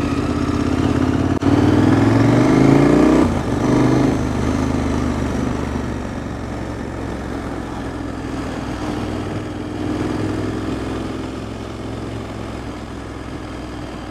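Motorcycle engine accelerating through the gears: the pitch rises for about two seconds, drops at a gear change, climbs briefly again, then settles into a steady cruise that slowly gets quieter.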